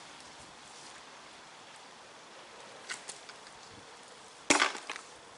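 A fishing magnet on a rope thrown into a canal, landing with one loud splash about four and a half seconds in that dies away within half a second. Before it there is only quiet outdoor background with a couple of faint clicks.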